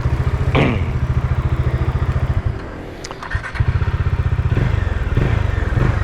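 Bajaj Dominar 400's single-cylinder engine running at idle with an even low beat. About halfway through, the engine sound drops away for about a second and comes back with a sharp knock.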